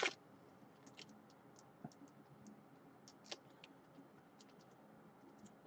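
Near silence with faint, scattered light clicks and taps, about a dozen, irregularly spaced.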